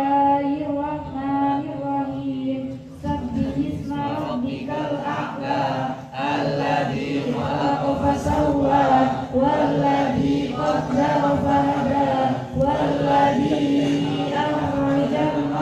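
Girls' voices chanting a Qur'an recitation through a microphone and loudspeaker, in long held melodic lines.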